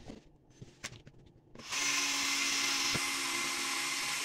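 A cordless drill starts about a second and a half in and runs steadily as its bit bores a small hole through the side of a thin plastic drink bottle. A few light taps come before it starts.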